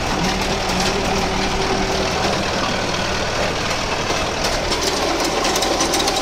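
Mahindra Arjun Novo 605 DI tractor's four-cylinder diesel engine running steadily under load while it drives a rotavator through the PTO shaft, with the noise of the rotavator tilling the soil, heard from the operator's seat.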